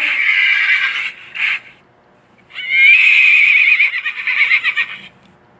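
Horse whinnying twice: a high, quavering neigh, then after a short gap a second long, shaking whinny that fades away.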